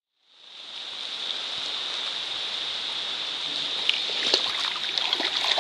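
Rushing creek water and rain, a steady hiss that fades in at the start; from about four seconds in, sharp drips and splashes stand out over it.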